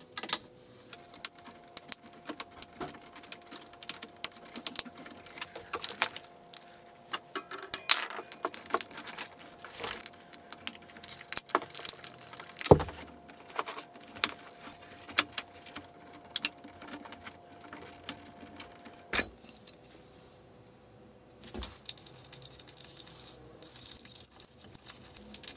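Hands handling a plastic cable drag chain, PVC tubing and small bracket hardware: scattered small clicks, taps and rattles, with two louder knocks about 13 and 19 seconds in, over a faint steady hum.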